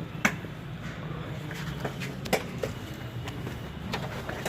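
A few sharp clicks and knocks as the locking clip on the intercooler charge pipe is fitted by hand, over a steady low hum.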